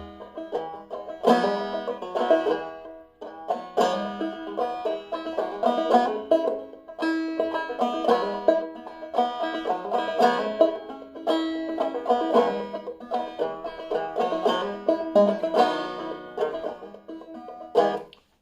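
Five-string banjo played clawhammer style, a steady run of plucked, ringing notes in an open tuning a whole step below fDGCD, ending with a final strum near the end.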